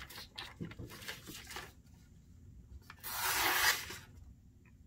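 Bayonet blade slicing through a sheet of printer paper, one brief rasping swish about three seconds in, after some light paper rustling. It is a paper-cutting test of the edge, and the blade cuts cleanly.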